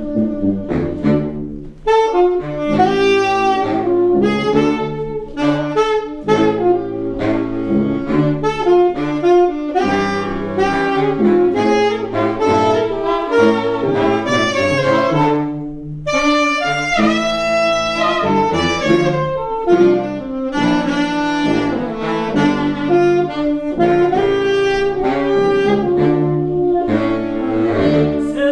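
Saxophone band playing a tune live: baritone, tenor and alto saxophones together over a low bass line.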